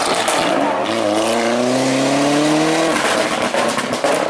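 Rally car engine accelerating hard at full throttle, its revs climbing steadily for about two seconds. The revs then break off about three seconds in at a gear change, and a sharp crack follows near the end.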